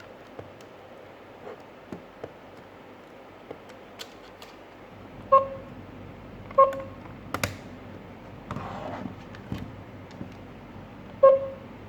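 Three short electronic beeps from a GSM alarm system panel, two a little over a second apart midway and a third near the end, among light clicks and taps of buttons being pressed and a brief rustle of handling.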